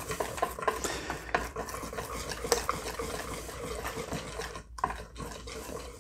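Wire whisk beating pancake batter in a bowl: a steady run of quick clicks and scrapes as the wires hit the bowl, with a brief break about three-quarters of the way through.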